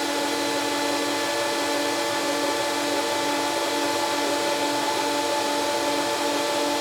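Electric wood planer running steadily with a constant motor whine and hum.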